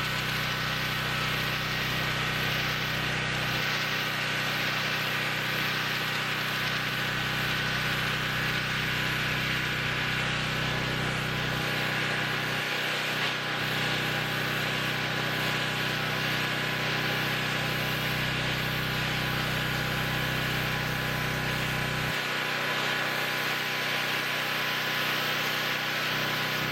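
Pressure washer running steadily, its motor drone under the hiss of the high-pressure jet from the wand's regular nozzle spraying onto a wooden deck. The low part of the drone shifts in level a couple of times.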